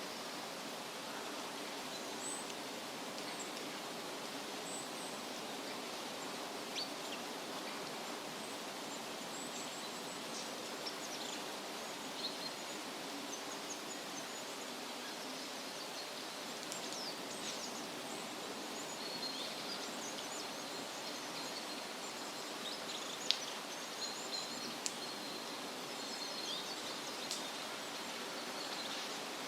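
Forest ambience: a steady rushing hiss with small birds chirping faintly, more often in the second half, and a few short sharp clicks.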